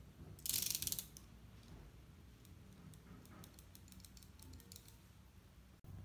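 Ratcheting clicks of a snap-off utility knife's blade slider: a loud, fast run of clicks about half a second in, then scattered lighter ticks over the next few seconds.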